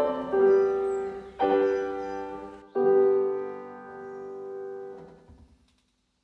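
Solo piano music playing slow sustained chords, three struck in turn, the last dying away to silence near the end.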